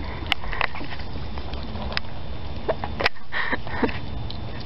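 Young raccoons snuffling and eating at a food bowl close by, with three sharp clicks or taps: one right at the start, one about two seconds in and one about three seconds in.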